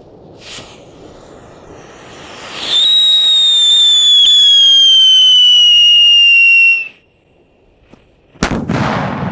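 Lit Lupo 26 firecracker: a faint fuse hiss, then a loud piercing whistle that falls slowly in pitch for about four seconds and cuts off sharply, followed a moment later by a single loud bang near the end.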